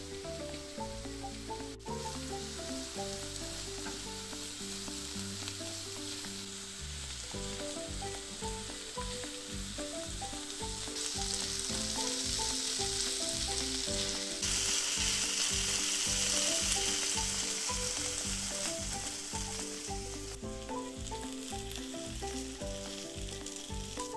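Sliced mushrooms and red onion sizzling in a frying pan while a spatula stirs them; the sizzle grows louder about halfway through. Background music plays throughout.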